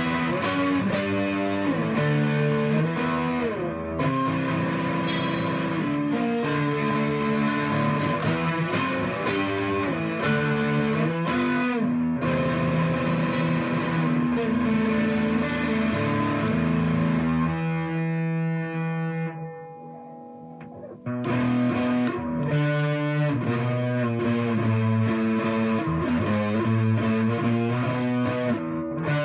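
Solid-body electric 12-string guitar played through an amp: runs of single notes and chords, its doubled strings giving a natural chorus-like shimmer. About two-thirds of the way through, one chord is left ringing and fading for a few seconds before the playing picks up again.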